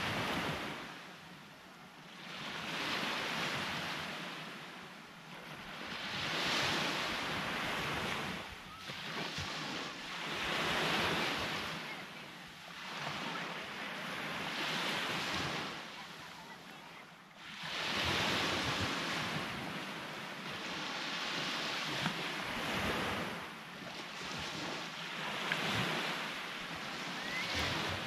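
Sea waves breaking on the shore, the surf swelling and falling away about every three to four seconds.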